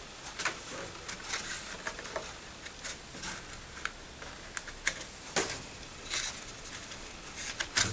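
Scattered clicks, taps and scrapes of hands working a loudspeaker's fabric front grille loose from the cabinet, with sharper clicks about five and a half seconds in and a quick cluster near the end as it comes away.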